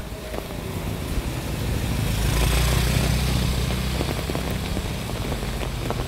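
A motorcycle engine running, growing louder to a peak about halfway through and then easing off, over steady rain with scattered drips.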